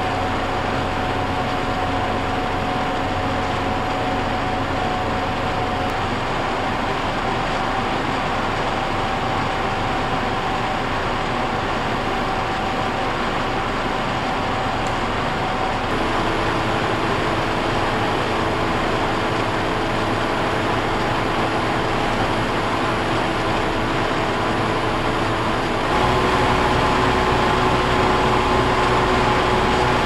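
Paseco PWA-3300 window air conditioner running in cooling mode: a steady rush of fan air over a low hum, with a few steady tones. The sound steps up to a higher setting about six, sixteen and twenty-six seconds in. Each step shifts the tones and makes it a little louder, and the last step, to turbo, is the loudest.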